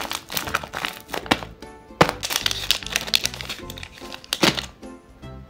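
A paper squishy crinkling and crackling as it is squeezed, with sharp crackles about two seconds in and again near the end, over background music with a steady beat.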